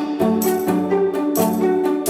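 Intro music with a beat and held notes.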